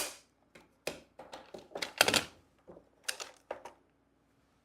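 Plastic magnetic tiles and toy farm pieces clacking and snapping together as they are handled and set down: a series of sharp, irregular clicks, the loudest cluster about two seconds in, dying away over the last second.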